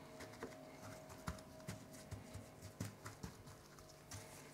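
Faint, irregular soft taps and pats of a gloved hand pressing dry spice rub onto a rack of raw pork spareribs on a plastic cutting board.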